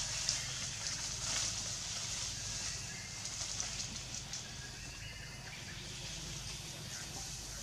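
Outdoor ambience: a steady low rumble and hiss, with faint crackles early on and a few faint short high tones about halfway through.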